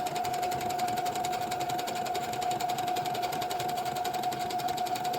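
Brother computerised sewing machine running steadily as it sews a straight stitch at its default length of 2.5 and width of 0. A constant motor whine carries rapid, even needle strokes, and it starts suddenly.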